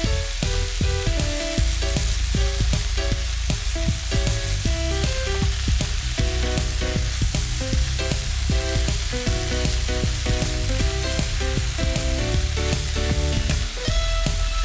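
Vegetables for a cabbage stir-fry sizzling in hot oil in a pan, heard under background music made of a melody of short notes over a steady bass.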